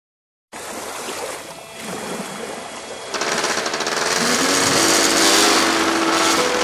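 Paramotor engine running with a fast, even rattle. It gets louder from about three seconds in.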